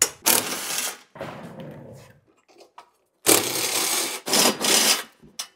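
Cordless drill with a 10 mm socket spinning nuts off a steel shipping-crate frame, running in four bursts of about a second each with a pause in the middle.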